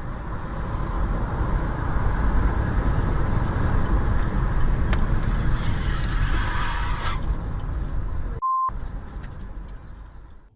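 Steady rumble of a moving car's engine and road noise. About eight seconds in, the sound cuts out for a moment under a short, single high beep, then the rumble returns.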